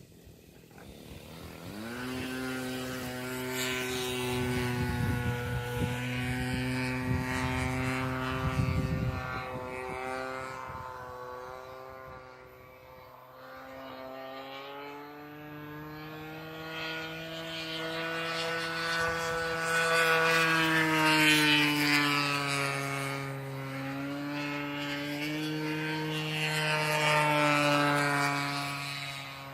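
Radio-controlled model airplane's 33cc two-stroke gas engine and propeller. It comes in rising in pitch about two seconds in, then drones steadily, its pitch shifting and its loudness swelling and fading several times as the plane flies around.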